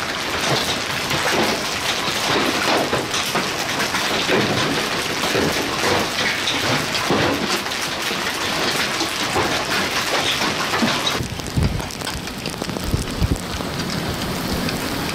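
Large hail and heavy rain pelting the vehicle and the ground: a dense, loud patter of many impacts, with sharper single hits standing out. About eleven seconds in, the sound changes abruptly to a duller, softer patter with a few low thumps.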